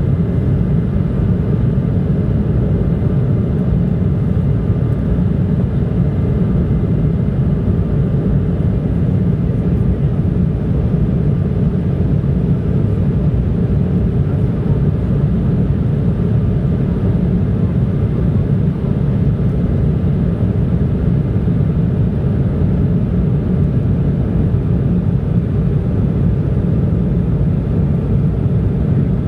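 Airliner cabin noise heard from a passenger seat: a steady low rumble of the jet engines and airflow, with a faint steady whine above it.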